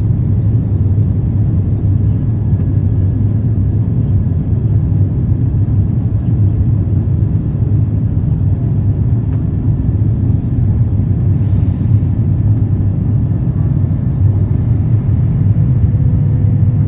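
Airbus A350 cabin during takeoff: the Rolls-Royce Trent XWB engines at high power and the airflow make a loud, steady, low rumble.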